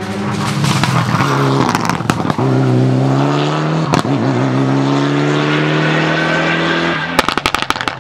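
Rally car engine at full throttle on a gravel stage. Its pitch drops at a gear change about two and a half seconds in, then climbs steadily, and a rapid string of sharp cracks comes near the end.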